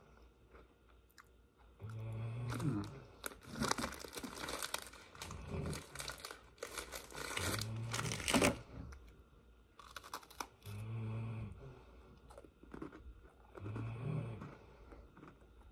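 Oreo chocolate sandwich cookies being crunched and chewed close to the microphone, mixed with crinkling of the plastic Oreo package. The crunching and crinkling come in bursts, heaviest in the middle.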